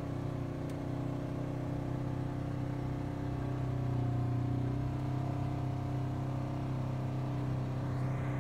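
Side-by-side off-road vehicle's engine running steadily at trail speed, heard from the driver's seat as a constant low drone. It gets slightly louder about halfway through.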